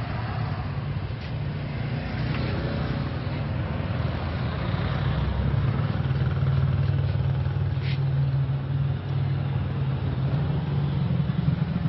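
Motor vehicles running along the street, a steady engine hum that grows louder about halfway through as traffic passes.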